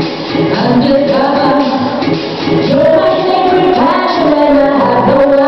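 Pop song with a female lead vocal playing loudly as routine music.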